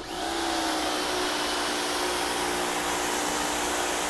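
Rock & Rocker electric pressure washer starting as the trigger is pulled: its motor and pump spin up with a short rising whine, then run steadily under the hiss of the water jet from the 25-degree tip spraying the vinyl siding.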